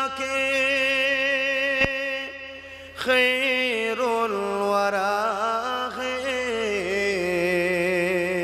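A solo male voice singing an Islamic devotional song (gojol/naat), drawing out long held notes with a wavering, ornamented pitch. There is a short break about two seconds in, and the line sinks to a lower note near the end.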